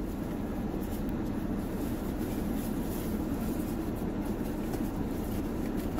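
Steady low hum of a car cabin with the air conditioning and engine running, with light scratchy rustling of a cardboard fried-chicken box being handled.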